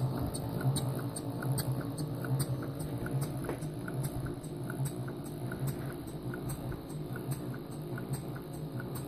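Scale-model duplex Corliss tandem compound steam engine running steadily, with a light rhythmic ticking about two to three times a second over a low pulsing hum.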